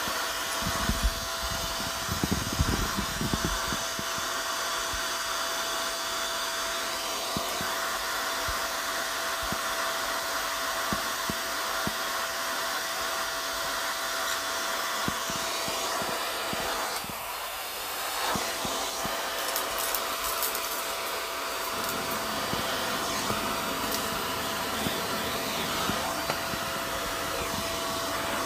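Vacuum cleaner running with a steady motor whine while its bare hose end sucks up a pile of sand, glitter, plastic beads and coins from carpet, debris crackling and rattling up the hose. The crackles are thickest in the first few seconds and again a little past the middle.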